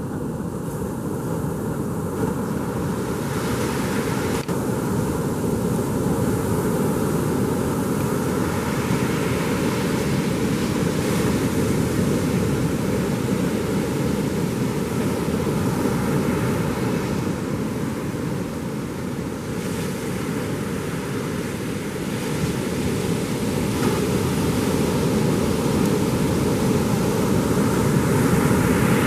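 Ocean surf washing onto the beach in a steady rush, with wind on the microphone; it swells slowly and is a little louder near the end.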